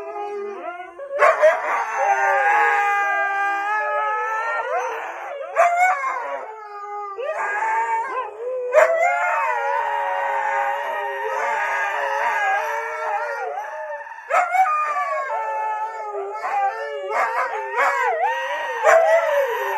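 Dog howling: a series of long, wavering howls with short breaks between them.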